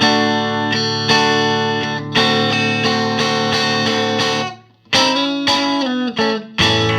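Electric guitar (a Fender Stratocaster) played through a 1968 Fender Princeton tube amp with volume, treble and bass all on 10: ringing single notes and chords. The playing stops briefly about two-thirds of the way through, then resumes with quicker notes and bends.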